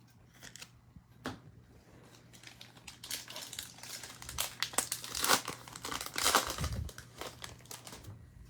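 Trading card pack wrapper being torn open and crinkled by hand, with a few light crackles at first and then dense crinkling that is loudest past the middle.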